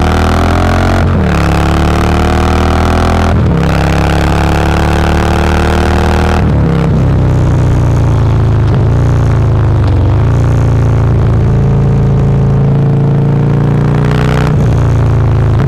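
Harley-Davidson CVO Twin Cam V-twin heard from on board, accelerating through the gears. The engine note climbs and breaks at upshifts about one, three and six and a half seconds in, then holds a steadier cruise with small dips, and shifts again near the end.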